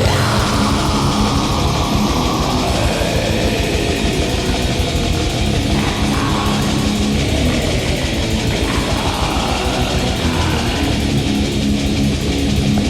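Black metal music with distorted electric guitar, loud and dense throughout, with no break.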